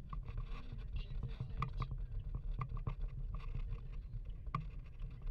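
Car driving, heard from inside the cabin: a steady low road and engine rumble, with a few scattered sharp ticks.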